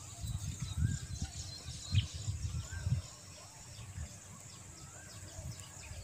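Rural outdoor ambience: a few faint bird chirps and a steady high insect buzz. Irregular low rumbling on the phone's microphone runs through about the first three seconds.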